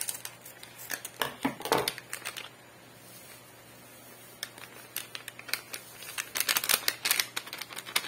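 Scissors snipping open a foil-laminate instant coffee sachet, a few sharp snips in the first couple of seconds. Near the end the sachet crinkles and rustles as the coffee powder is shaken out of it into a mug.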